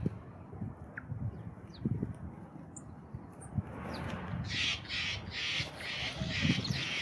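Steller's jay calling: a run of about six harsh, rasping notes, evenly spaced, starting a little past halfway. Before it, a few thin, high chip notes from small birds.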